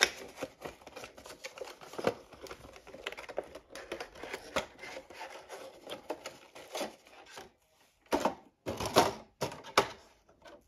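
Plastic and cardboard watch packaging being handled and slid apart: a run of small clicks, taps and rustles, then three louder scraping swishes near the end as the boxes slide against each other.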